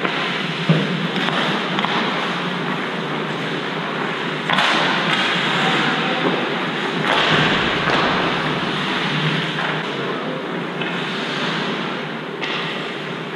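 Hockey game being played in a rink: a steady wash of game noise with a sharp knock about a second in and louder swells of noise around the middle.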